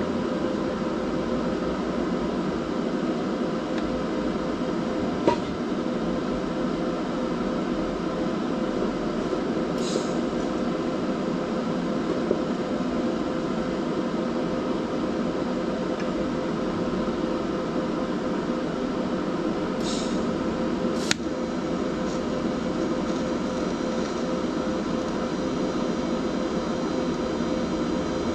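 Steady machine hum with a fan's whir and a constant whine, broken by a sharp click about five seconds in and another about twenty-one seconds in.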